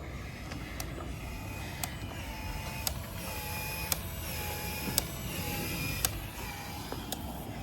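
Cordless PEX expansion tool working an expansion ring: a short motor whine and a sharp click about once a second, repeating in an even cycle as the head expands the PEX pipe end.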